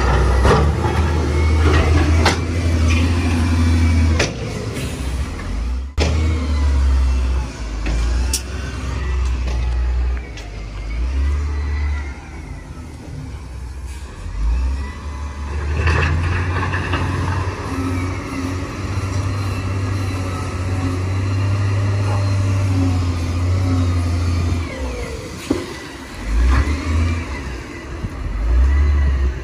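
Heavy diesel engines of a dump truck and a bulldozer running and revving, the rumble swelling and easing repeatedly under the load of a recovery, with a couple of sharp knocks.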